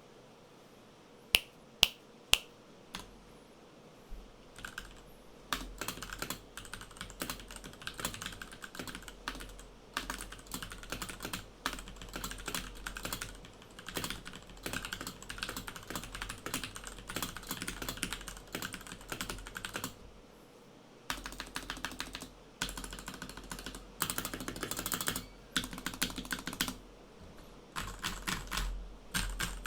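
Typing on a Royal Kludge G68 mechanical keyboard with stock Gateron Milky Yellow linear switches, stock keycaps and stabilizers: fast runs of key clicks that stop briefly about twenty seconds in, then resume. Three loud sharp clicks come first, in the opening seconds.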